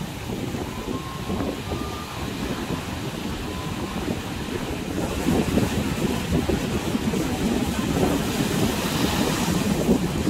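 Wind buffeting the microphone with surf breaking on the shore, a gusty rumble that gets louder about halfway through, the hiss of the wash rising near the end.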